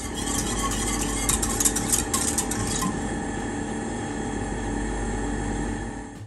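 Jelly mixture being stirred in a small metal saucepan on a gas stove as it is brought to the boil. Crackly scraping and clicks are busiest for the first three seconds, over a steady rushing noise.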